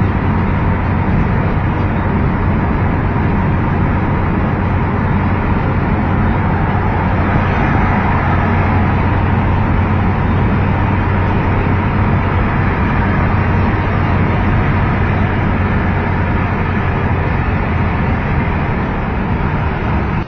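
Road noise inside a moving car: a steady low drone under an even rushing noise as the car drives along a highway.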